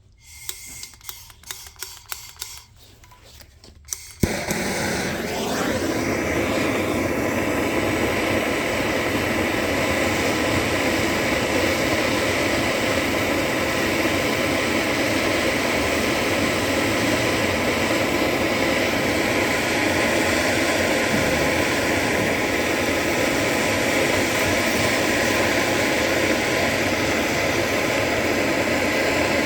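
A few light clicks, then a blowtorch lit about four seconds in with a sharp pop, then its flame hissing loudly and steadily while it heats a chunk of solder in a small cast iron pan to melt it.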